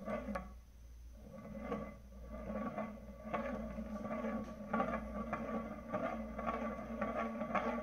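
A homemade ring tippe top spinning on a wooden tabletop, its edge rattling and scraping against the wood as it wobbles. The rattles come in pulses that grow faster and louder, over a low steady hum.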